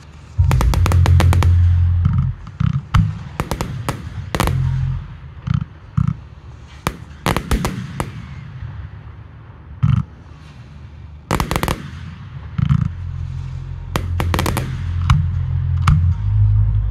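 Fireworks display: shells bursting in a long run of sharp bangs, some single and some in fast crackling clusters, with a deep rumble underneath.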